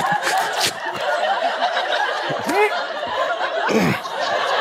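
Studio audience laughing, with a couple of short sliding vocal sounds over the laughter.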